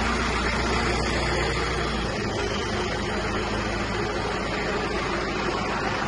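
John Deere 5090 tractor's diesel engine idling steadily, its low hum weakening about two seconds in.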